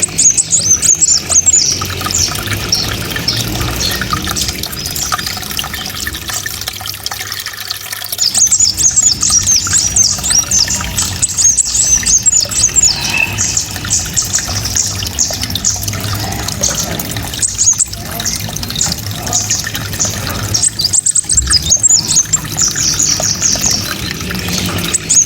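Small songbird singing a fast, piercing 'tembakan' (rapid-fire) song of very high chirps and trills in repeated bursts a few seconds long, over a steady background hiss.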